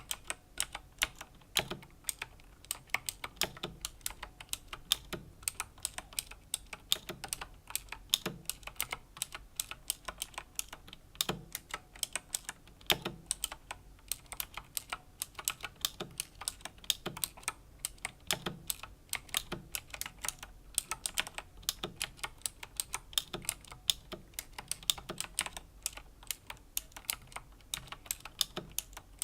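Razer Green clicky mechanical switches on a Razer BlackWidow Chroma V2 keyboard, clicking under steady, unhurried typing. Sharp clicks come several times a second, with a deeper knock about once a second.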